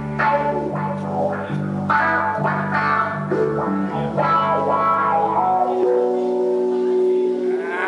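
Electric guitar and bass guitar playing a rock passage live, with plucked notes over a moving bass line, settling into a long held chord near the end.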